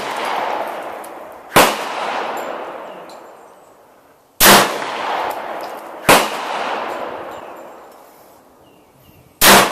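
CZ 82 pistol in 9x18 Makarov firing four single shots at a slow, uneven pace. Each shot rings off in a long echo that fades over a couple of seconds.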